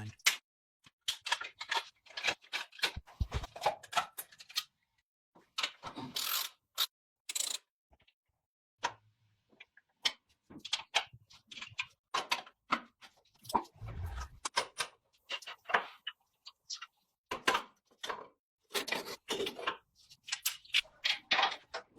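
Scattered clicks, clinks and knocks of metal parts and tools being handled, one at a time with short pauses between, and a couple of dull low thumps, one near the start and one about halfway.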